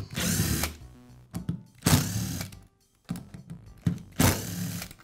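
Cordless drill/driver spinning in three short bursts, each well under a second and about two seconds apart, as it backs out the screws of a Dremel Multi-Max's lower handle cover, with light clicks between the bursts.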